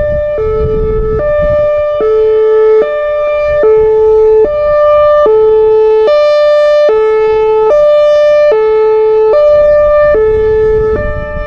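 Whelen Vortex outdoor warning siren sounding its Hi-Lo test signal: a loud two-tone wail switching between a low and a high pitch roughly every 0.8 seconds.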